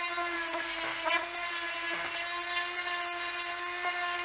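Proxxon mini rotary drill running at one steady high-pitched whine, its bit boring into a plastic building-brick plate, with a few brief scratchy ticks as it cuts.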